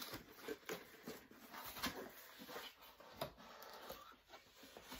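A cardboard mailer box being opened and its contents handled: irregular light knocks, scrapes and rustling of cardboard and packing.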